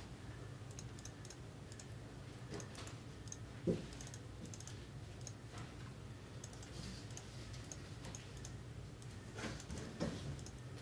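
Faint scattered clicks and taps over a low steady hum, with one soft thump about four seconds in.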